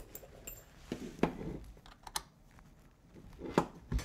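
A handful of short, sharp clicks and light knocks as a metal-hinged entry door is lowered onto its hinges, the hinge knuckles clicking together as they meet. The loudest come about a second in and near the end.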